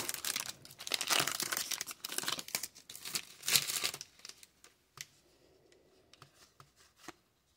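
Foil wrapper of a Panini Playoff football card pack crinkling as it is torn open and the cards are pulled out, for about four seconds. Then only a few faint clicks as the stack of cards is handled.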